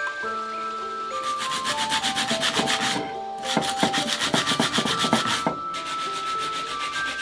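Sandpaper rubbed back and forth on an oxidised copper disc in quick, rhythmic strokes, starting about a second in and pausing briefly twice. Background music with a light melody plays underneath.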